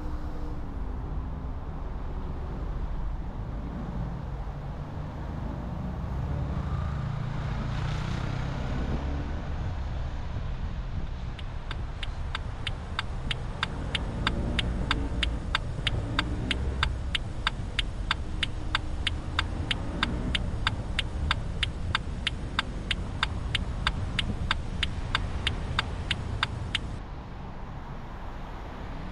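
Car turn-signal indicator clicking in an even, steady rhythm for about fifteen seconds in the middle, signalling a lane change to the right, over the car's steady road and engine rumble.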